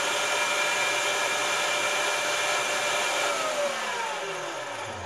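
Electric meat grinder with a sausage-stuffing tube running steadily, then switched off a little over three seconds in as the casing is nearly filled, its motor winding down with a falling whine that dies away at the end.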